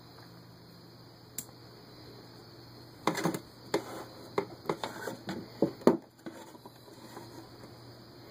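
A quick series of sharp wooden knocks and clicks, about eight over three seconds, as the hinged pine lid of a small box is handled and lifted open. A faint steady electrical hum sits underneath.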